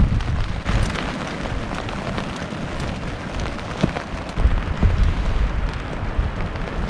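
Wind gusting against the microphone with rain falling, a heavy low rumble in uneven surges and scattered sharp ticks.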